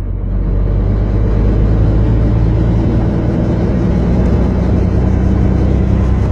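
Helicopter engine and rotor running, heard from inside the cabin as a loud, steady low rumble, with a faint regular beat from the rotor coming up in the top end a couple of seconds in.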